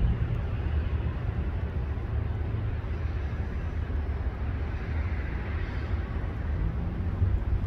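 CSX freight train's cars rolling along the rails at a distance: a steady low rumble.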